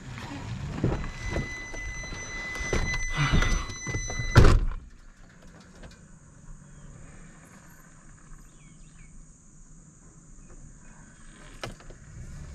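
Pickup truck door: someone climbs in with rustling and knocks while a steady high tone sounds for about three seconds, then the door is slammed shut about four and a half seconds in. After the slam the cab is quiet, with faint bird chirps outside and a single click near the end.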